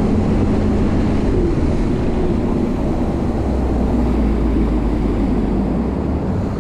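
Bass boat's outboard motor running steadily at speed, with wind rushing over the boat.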